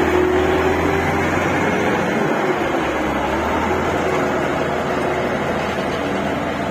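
Komatsu GD535 motor grader's diesel engine running as the grader drives past and moves away, its loud, steady note easing off slowly.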